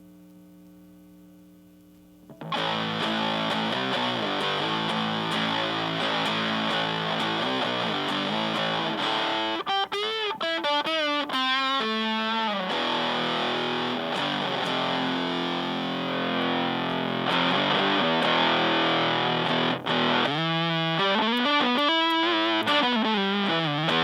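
Fender Stratocaster played through a hand-wired Super Power-Fuzz pedal into a Fender Blues Junior amp: thick fuzz-distorted riffs with gliding, bent notes, the pedal's tone stack set past 12 o'clock for more lows and fewer highs. A faint held hum for the first couple of seconds before the playing starts.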